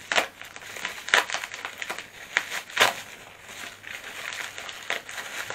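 Bubble wrap and packing tape crinkling and crackling as a small bubble-wrapped package is cut open and pulled apart by hand, with irregular sharp crackles, the loudest right at the start.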